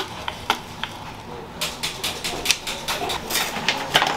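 Small metallic clicks, taps and brief scraping rattles of hands working on a mountain bike's rear derailleur and shift cable, with a short rising squeak at the very end.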